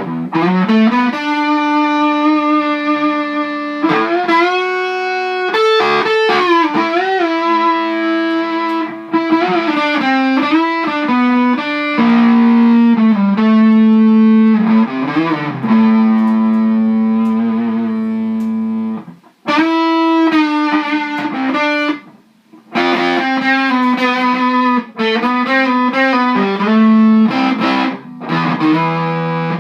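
Les Paul style electric guitar played through a Mighty Tiny Fuzz pedal into a modded Fender Champ 600 and a Celestion G12H Anniversary 12-inch speaker: fuzzy, sustained single-note lead lines with string bends. The playing breaks off briefly twice past the middle.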